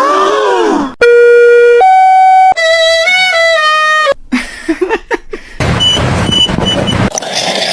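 Soundtrack music and cartoon sound effects: a sliding tone that rises and falls, then two long held notes and a short stepped melody, followed by a noisy stretch with a few short high beeps.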